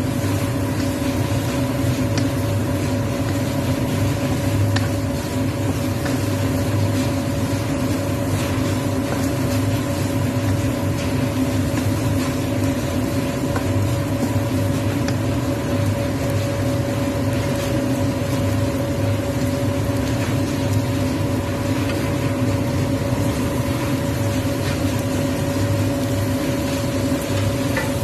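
Stir-frying in a wok: squid sizzling, with a few scrapes and taps of a wooden spatula, over a steady mechanical hum.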